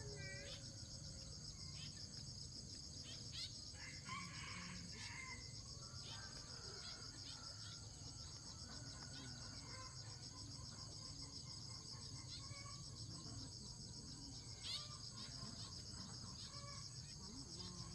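Rural outdoor ambience: a steady, faint chorus of insects trilling high up, with scattered short bird chirps and occasional chicken calls over it.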